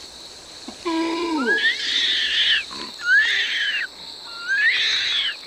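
Young orangutan calling: a short falling whimper about a second in, then three high squeals, each rising and then falling. A steady high drone of insects runs underneath.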